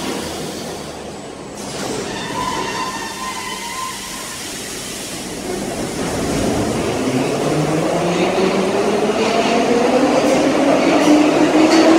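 Blue Soviet-built M3 metro train pulling away from the platform. Its traction motors give a rising whine, several tones gliding up together, growing louder as it accelerates through the second half.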